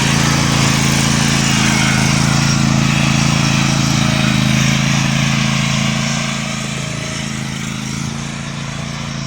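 Bad Boy riding lawn mower's engine running steadily, easing off slightly about six seconds in.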